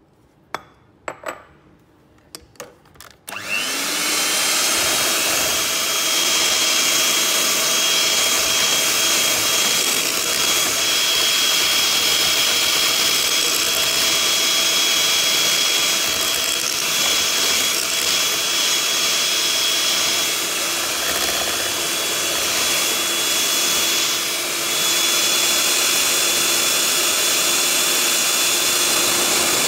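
A few light clicks, then about three seconds in an electric hand mixer switches on, whining up to speed, and runs steadily with its wire beaters whisking a batter in a bowl.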